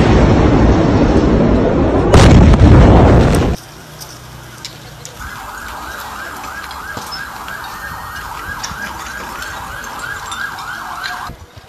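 Blast roar from the ammonium nitrate explosion overloading the microphone, with a sudden louder crack about two seconds in that ends abruptly. After a pause a siren-type alarm wails in quick repeating rises, about three a second, then stops near the end.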